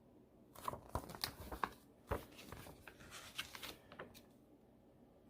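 Paper rustling and crinkling as a pattern book is handled and its pages turned: a run of small rustles and taps starting about half a second in and stopping about four seconds in.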